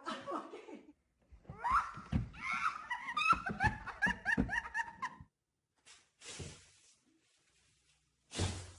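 Women laughing in rapid repeated bursts after a fall. A short thud comes near the end.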